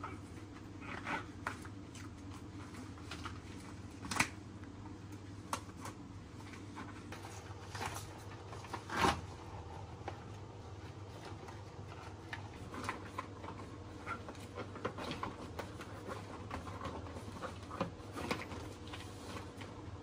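Long rubber dishwashing gloves being tugged and peeled off by hand: irregular rubbery rustles, squeaks and slaps, with two louder ones about four and about nine seconds in, over a faint steady hum.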